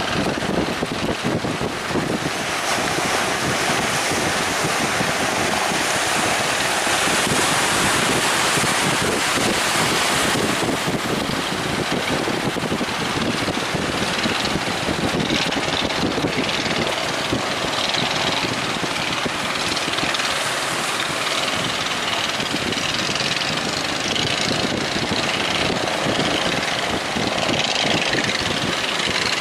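Wind buffeting the microphone over the noise of surf, with a fishing boat's engine running underneath.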